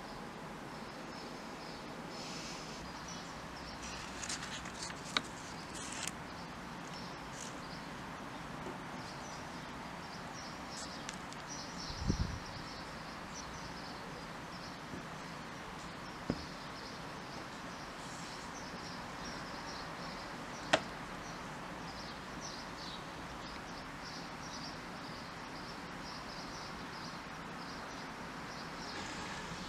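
Faint bird chirping over a steady background hiss, with a few sharp clicks and one low thump about twelve seconds in.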